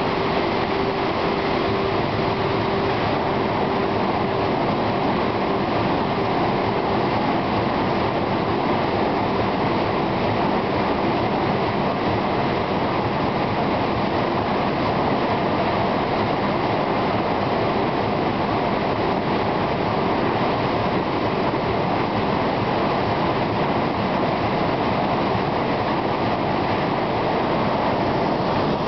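Martin 924 corrugated-box folder-gluer running at production speed, a steady loud mechanical clatter and rush as cardboard blanks feed through its folding section, with a faint hum in the first several seconds.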